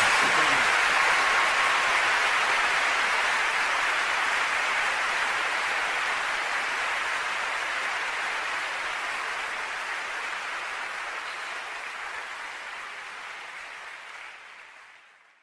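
A steady, even hiss with no beat or tune, left as the outro of a hip-hop track after the beat stops, fading slowly away to silence near the end.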